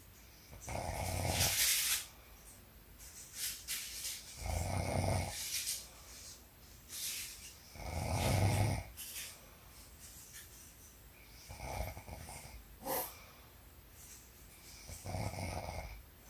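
A woman snoring in her sleep: five rough snores, about one every three to four seconds, with quieter breaths between them.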